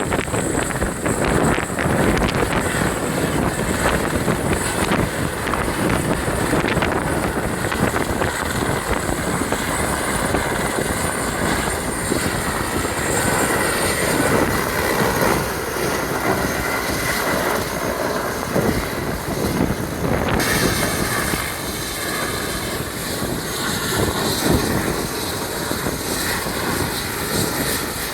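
Helicopter landing, its rotor and engine running loud and steady; about two-thirds of the way in, its high whine changes abruptly.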